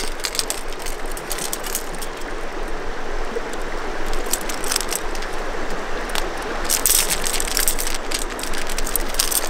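Steady rushing of a river, with scattered small clicks and clinks, a little cluster of them about seven seconds in, from a hard plastic wobbler's treble hooks and split ring as it is handled and tied onto the line.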